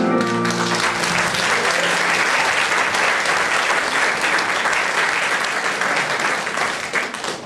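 Audience clapping and applauding as the song's last falling run of notes ends. The applause holds steady, then thins out near the end.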